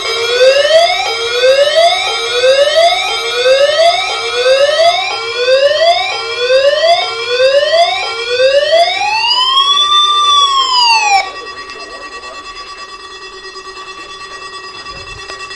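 Electronic siren sounding a test: a quick rising sweep repeated a bit more than once a second, then one slow rise and fall that cuts off sharply about eleven seconds in. Steady tones hold underneath throughout.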